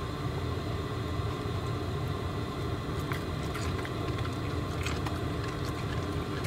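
Steady low mechanical hum, with a few faint short clicks about three to five seconds in.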